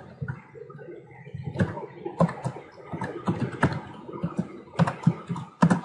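Computer keyboard being typed on: irregular keystroke clicks, sparse for the first second or so, then quicker runs of strokes.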